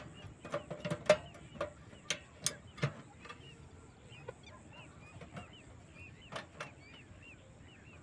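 Scattered clicks and metallic knocks from a portable butane camping stove as a fresh gas canister is fitted and the stove is worked, the burner not yet lighting. A quick run of clicks comes in the first three seconds, then two more a little past the middle.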